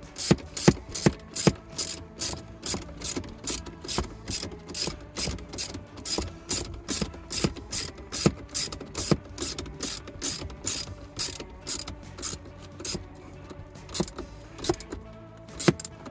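Ratchet wrench clicking in quick, even strokes, about two and a half a second, as a battery cable clamp nut is run down on the positive terminal; the strokes thin out to a few spaced clicks near the end.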